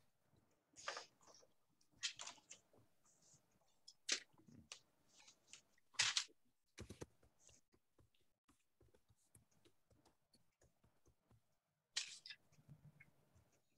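Faint handling noises near a microphone: a handful of short rustles and clicks, a second or two apart, with a quieter stretch of small ticks before one last rustle near the end.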